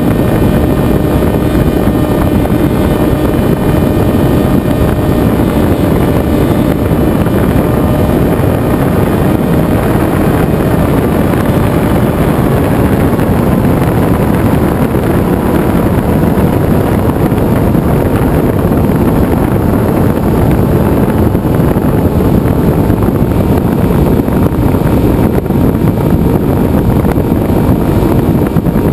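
Venturi FPV flying wing in flight: its propeller motor runs steadily under heavy wind rush over the onboard camera's microphone, the motor's faint tone drifting a little in pitch.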